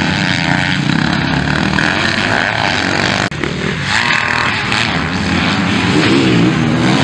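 Motocross bike engines racing on the track, revving up and down; the sound breaks off for an instant about three seconds in and carries on.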